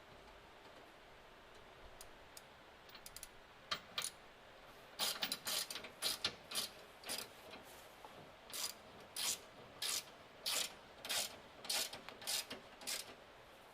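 Hand ratchet being worked to tighten a bolt: a few scattered clicks at first, then steady back-and-forth ratcheting strokes, about two a second.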